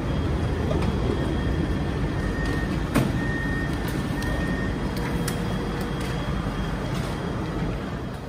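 Steady low rumble of an SNCF Z 26500 electric multiple unit standing at the platform with its equipment running, during boarding. A sharp knock comes about three seconds in, and short high beeps sound between about two and five seconds in.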